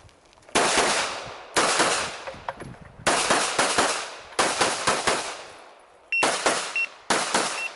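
Practical-shooting handgun fire: a string of rapid shots in about six quick bursts of several shots each, with short pauses between bursts as the shooter moves between shooting positions. Each shot is sharp and echoes off the earth berm.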